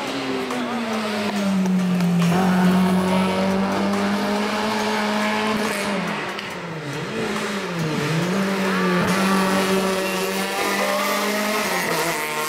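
Rally cars' engines running at high revs on a hill-climb course. The note holds steady, then its pitch dips and climbs back several times midway.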